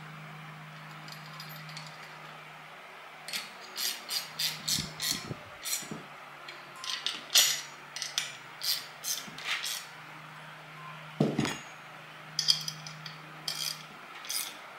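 Metal spanner clicking and clinking in quick, uneven strokes as it tightens the bolts clamping a steel end plate to an air suspension bag, with a pause and one dull thump a little past the middle. A low steady hum sits behind it.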